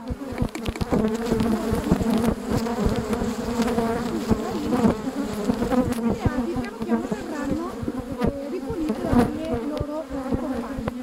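Honey bees buzzing around an open hive: a steady hum with individual bees flying close by, their pitch bending up and down, and many small ticks and knocks.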